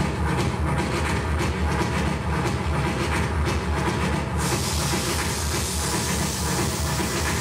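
Composed industrial noise soundscape for the dance performance: a dense low rumble with fast, irregular clicking. About four seconds in, a steady hiss joins it.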